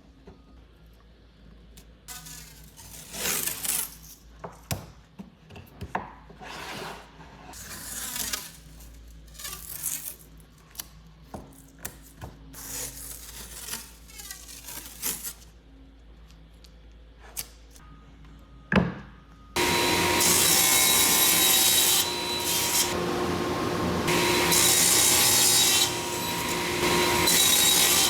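Woodworking tools on wood. First come separate short scraping strokes, like a hand saw or rasp working a board. About two-thirds of the way in, a power tool starts and runs steadily with a high whine, much louder than the strokes.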